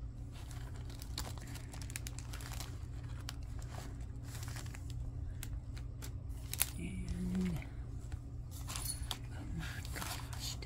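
Plastic wrapping crinkling and rustling in irregular bursts as wrapped items are handled, over a steady low hum. A short murmur of a woman's voice comes about seven seconds in.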